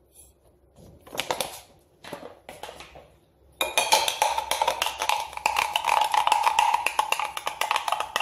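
A metal spoon stirring chia seeds in water inside a glass mason jar: rapid clinking against the glass with a steady ringing tone, starting about three and a half seconds in. Before that, only a few soft taps as the seeds are spooned in.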